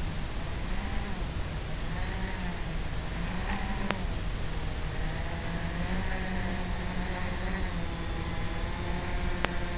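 Quadcopter's electric motors and propellers buzzing, the pitch rising and falling with throttle, over steady hiss and a thin high tone from the FPV video link. A sharp tick about four seconds in and another near the end.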